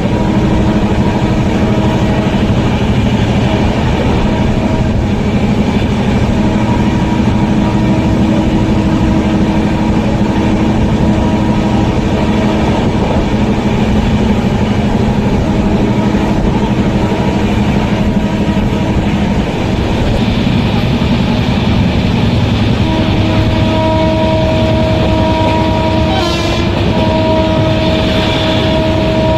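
Steady running noise of a passenger train at speed, heard from inside a coach: wheels rumbling on the rails, with a few steady humming tones over the rumble. Near the end the sound shifts briefly as an electric locomotive passes close by on the next track.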